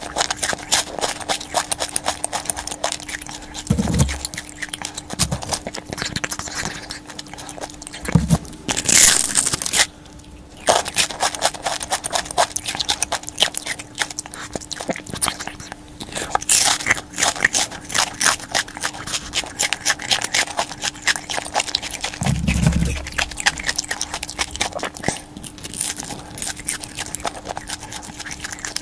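Close-up eating sounds of someone biting and chewing crispy fried chicken skin, a dense run of irregular crackly crunches.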